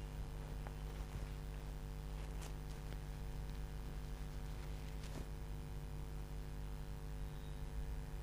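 Whiteboard duster rubbing across the board, faint, with a few short scuffs, over a steady low electrical hum.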